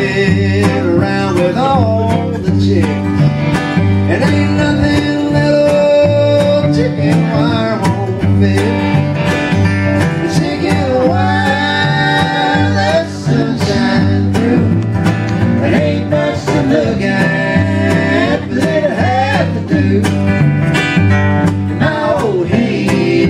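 Live acoustic string band playing a country song: strummed acoustic guitar with fiddle, mandolin and cello over a steady low bass line, with voices singing.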